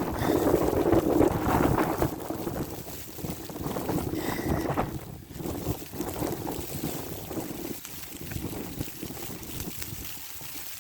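Wind buffeting the microphone in a snowstorm: an uneven rumbling rush, strongest in the first couple of seconds and easing toward the end.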